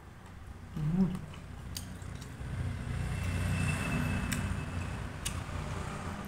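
A man eating a crisp fried snack, with a few sharp chewing clicks and a short hummed 'mm' about a second in. A low rumble swells over the middle and fades out again.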